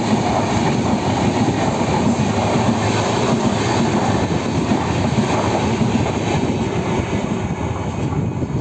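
A passing train rolling by on the track: a loud, steady rumble of wheels on rail, easing slightly near the end.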